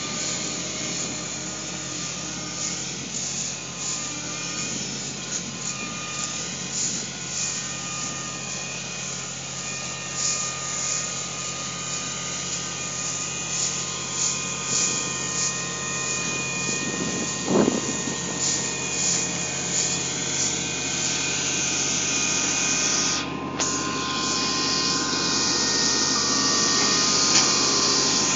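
Combine harvester at work threshing barley: a steady engine and machinery drone with a scatter of rattles and one brief thump partway through, growing louder near the end as the machine comes close.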